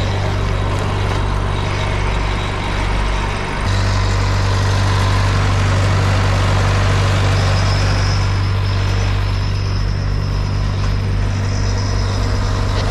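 Engine running steadily with a deep hum that gets louder about three and a half seconds in; a faint high whine joins it about halfway through.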